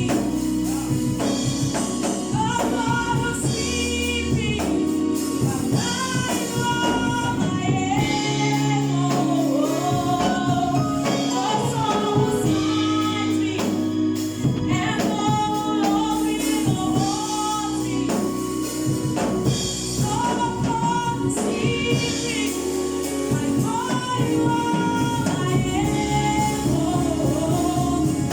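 Church choir singing a gospel song, with instrumental backing of sustained low notes and a steady beat.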